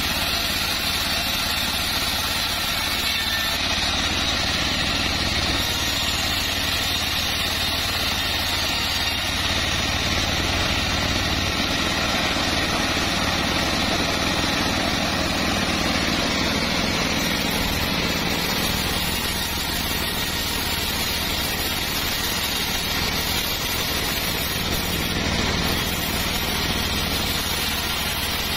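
Homemade band sawmill running steadily as its blade rips lengthwise through a long log slab.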